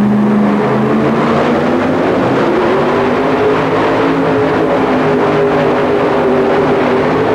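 Supercharged engine of a super modified two-wheel-drive Ford Ranger pulling truck running hard under load as it drags the weight-transfer sled down the track. Its pitch dips slightly about three seconds in, then holds steady.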